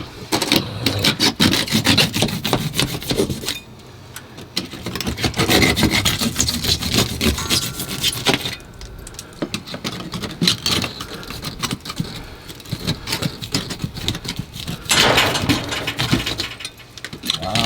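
Hand drywall saw sawing through a wall in rapid rasping strokes, in three or four long runs with short pauses between them.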